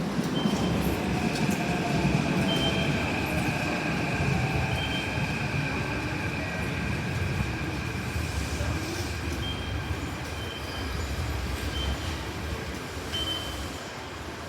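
Keikyu electric train moving at a platform: a low rumble of wheels on rail with steady high whines and some wheel squeal, slowly fading. Short high beeps sound every few seconds.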